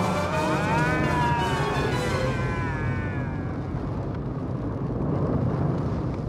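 Film soundtrack of a large fire roaring with a deep rumble, under music; a long wavering yell rises and falls over the first two seconds or so. The sound cuts off abruptly at the very end.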